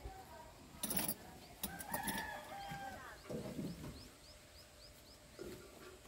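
A chicken calling for about a second, about two seconds in, over a small bird's repeated high chirps; a few sharp clattering knocks come just before it.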